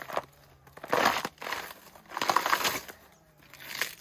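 Fibrous banana-trunk sheaths being torn and peeled apart by hand, a rough ripping and crinkling in bursts, the two longest about a second in and past the middle, a shorter one near the end.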